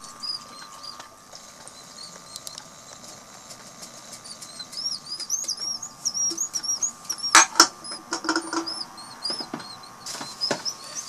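Black guillemots calling: many thin, very high whistles, each rising and falling, repeated over and over. Two sharp knocks come about seven and a half seconds in.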